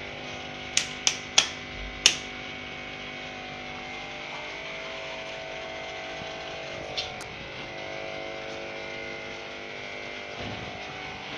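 Steady electrical hum with a few faint steady tones in it, broken by four sharp clicks in the first two seconds and one faint tick about seven seconds in.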